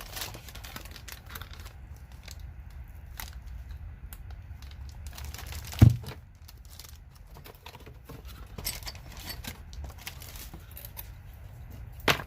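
Packaging being torn open and handled: paper and plastic tearing and crinkling with scattered clicks, and one heavy thump a little over halfway through.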